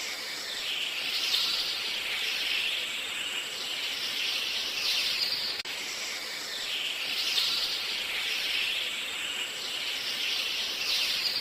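Dense, continuous high-pitched bird chatter and squealing that swells and fades every second or two, with a brief dropout just past halfway.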